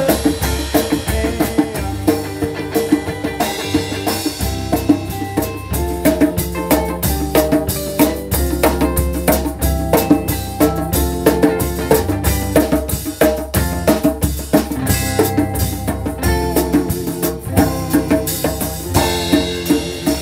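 Live African reggae / world-beat band playing an instrumental passage: drum kit and hand drums (djembe and congas) driving a busy rhythm under electric guitar.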